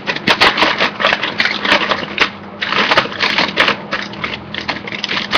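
Packaging crinkling and rustling as it is handled, a dense irregular run of sharp crackles and clicks with short pauses.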